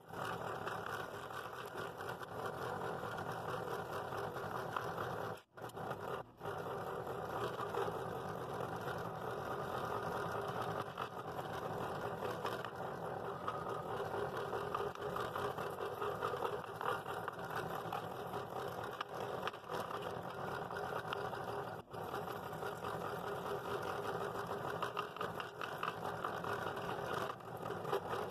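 Scroll saw running, its freshly fitted blade cutting through a thick glued-up blank that includes two layers of oak, a steady rapid chatter. The sound drops out briefly about five and a half, six and a half and twenty-two seconds in.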